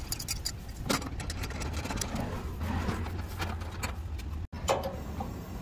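Short clicks and knocks of a small propane cylinder being fitted to a Martin two-burner camp stove and the stove's metal lid being lifted open. Under them runs a steady low rumble.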